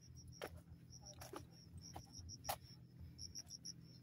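Faint insect chirping, a high pulsed trill repeating several times a second. A few footsteps on the dirt trail, the loudest about two and a half seconds in.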